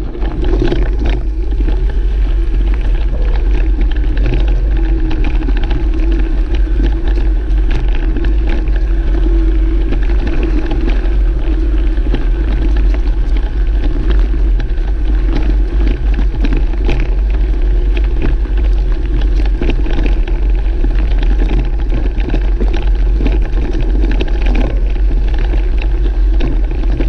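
Wind buffeting the microphone of a camera riding on a bicycle off-road, a steady heavy rumble, with frequent short clicks and rattles from the bike jolting over rough ground.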